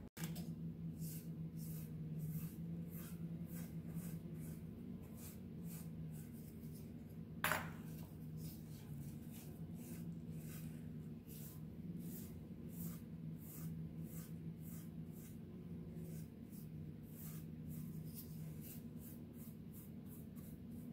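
Quick, repeated rustling strokes of a pastry brush sweeping flour across a wooden board, about two to three a second, with one sharp tap about seven and a half seconds in. A steady low hum runs underneath.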